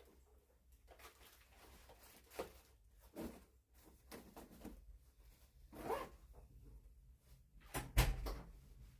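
Scattered short handling noises, rustles and scrapes a few seconds apart, the loudest a dull bump near the end.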